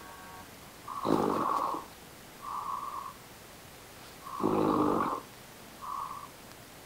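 A person snoring loudly, heard over a video-chat connection: two long, rasping snores about three seconds apart, each followed by a shorter, softer breath.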